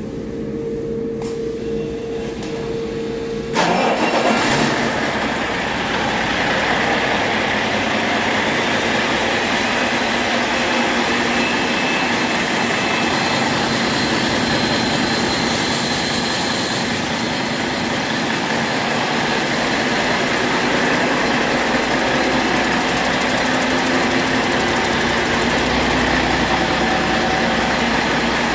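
2015 Cummins ISX15 inline-six diesel engine being started on a test stand: a steady whine for the first few seconds, then it fires about three and a half seconds in and runs steadily.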